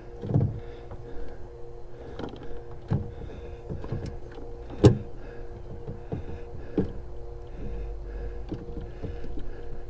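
Plastic coolant reservoir tank knocking and clicking against its mounting as it is worked around to seat its tabs in their locating holes: scattered knocks, the sharpest about five seconds in, over a faint steady hum.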